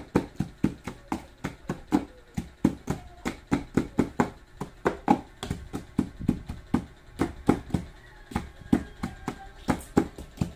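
Wooden pestle pounding chilies and garlic in a mortar: steady, sharp knocks about four a second.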